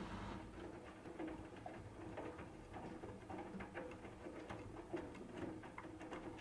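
AEG Lavamat 8000 front-loader turning its drum slowly to redistribute an unbalanced load before spinning. The motor's hum stops about half a second in, and then wet laundry and water slosh and flop inside the drum with soft knocks and clicks, the sharpest near the end.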